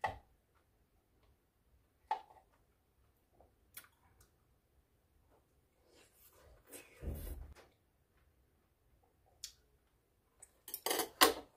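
Quiet eating sounds: chopsticks clicking against a bowl a few times, then chewing and mouth sounds, with a louder flurry of eating noises near the end.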